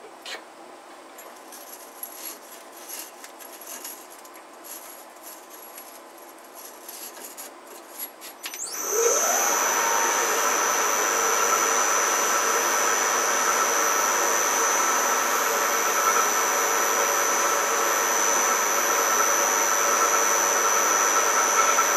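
Faint handling clicks, then about nine seconds in a Harrison M250 lathe starts, its whine rising quickly before it settles into a steady running whine. An abrasive block is held against the spinning threaded draw tube to smooth the freshly cut threads.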